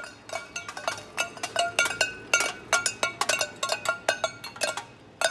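Tin cans tied on strings behind a golf cart clattering and clinking as they are dragged and bounced along asphalt, an irregular run of metallic clanks several times a second.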